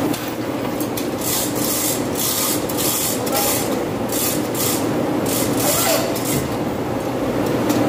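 Manual chain hoist being worked by hand, its steel chain rattling through the block in short, irregular bursts as the motor is lowered, over a steady background hum.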